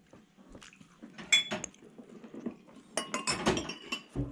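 Crockery and cutlery clinking: dishes being handled and a spoon knocking against a bowl. There is a cluster of clinks about a second in and a busier run of clinks and knocks around three seconds in.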